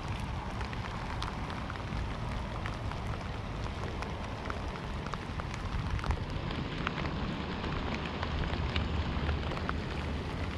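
Steady rain falling, with many scattered drops ticking sharply close to the microphone over a low rumble.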